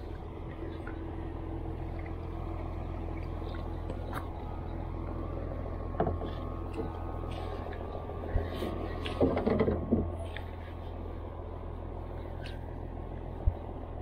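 A steady low hum out on the water around a small wooden canoe, with knocks and rattles against the hull as a handline is worked: one at about six seconds, a cluster of them between eight and ten seconds, and a single sharp knock near the end.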